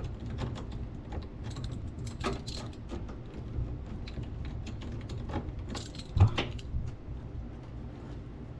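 A wrench clinking and rattling against metal while a small bolt is unscrewed from a car's bumper mount, with one sharper knock about six seconds in.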